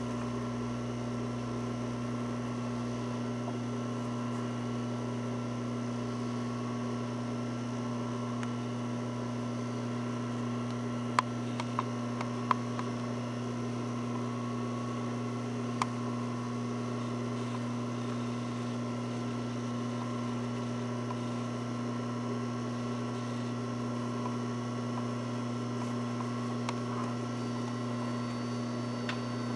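Steady low electrical hum, with a few faint clicks a little over a third of the way in and again about halfway.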